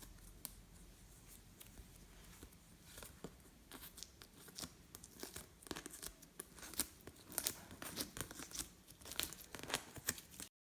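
Hands working glossy slime: sticky clicks, pops and crackles as it is pressed and stretched, sparse at first and coming thicker and faster after the first few seconds.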